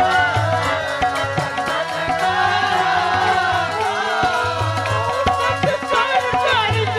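Sikh kirtan: voices singing a shabad in a wavering, ornamented melody over the sustained reed chords of a Crown Flute harmonium. A tabla keeps a steady beat, with deep bass strokes recurring throughout.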